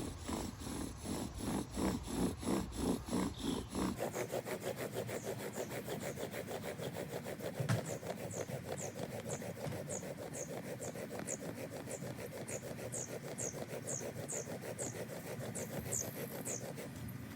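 Bow drill burning in: a farkleberry spindle spun by the bow against a farkleberry fireboard, wood rubbing on wood in steady back-and-forth strokes that speed up about four seconds in. A high squeak repeats through the second half.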